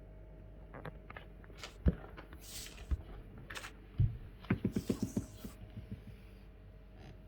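Handling noises: a few knocks and a quick run of about seven clicks, with two short hisses. No engine is running.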